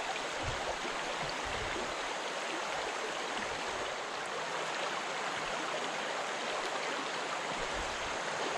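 Shallow limestone spring creek rushing steadily over rocks through riffles and pocket water.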